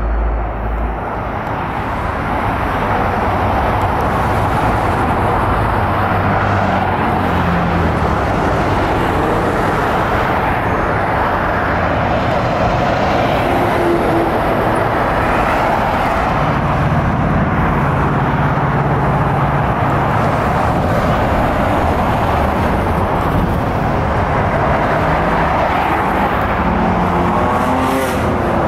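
Steady noise of dense multi-lane highway traffic passing close by: tyre roar and car engines running on without a break. Near the end a siren begins to wail up.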